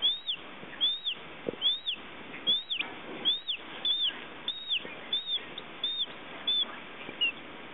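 Bantam chick peeping: a steady run of short, high, arching peeps, about one and a half a second, growing fainter in the last second or so.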